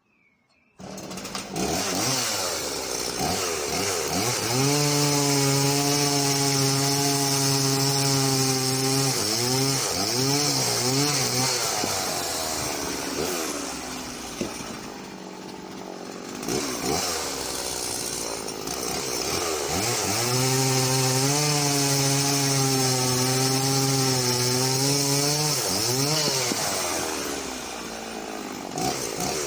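Husqvarna Rancher 50 two-stroke chainsaw comes in suddenly about a second in, revs up and runs at full throttle cutting through hardwood, drops back to a lower speed around the middle, then revs up and cuts again before easing off near the end.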